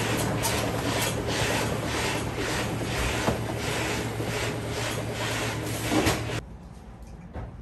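Udon noodle-making machine running: a rhythmic mechanical clatter, a little over two beats a second, over a steady motor hum, cutting off suddenly about six seconds in. A short knock follows near the end.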